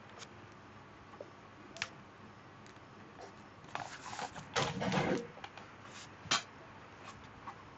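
Faint handling sounds: a few light clicks, a brief rustle about four to five seconds in, then a sharp click.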